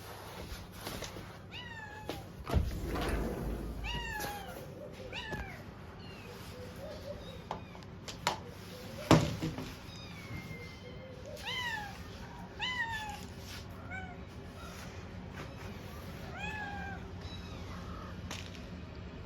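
Stray kittens meowing over and over: many short, high meows, each rising and then falling in pitch. Two sharp thumps cut in, one a few seconds in and a louder one about halfway through.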